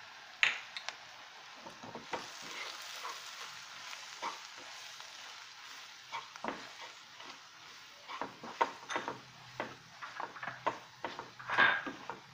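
Wooden spatula stirring and scraping onions, green chillies and spice powders in a hot oiled kadhai over a steady sizzle, the masala frying. A sharp scrape comes about half a second in, and the strokes come quicker and louder in the second half.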